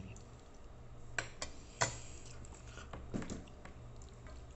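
Metal cutlery clinking and scraping against a plate and a serving pot during a meal: a few separate sharp clicks, the loudest about two seconds in, over a low steady hum.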